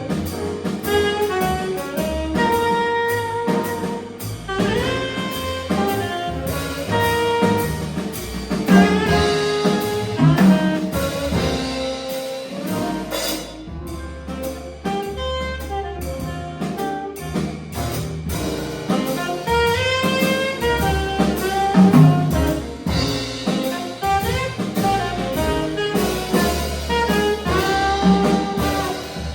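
Live jazz group playing, with a saxophone carrying the melody over a drum kit and a low bass line.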